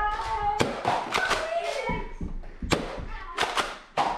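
Nerf blasters firing in a firefight: a string of sharp thumps and clacks, about seven spread unevenly, with short shouts between them.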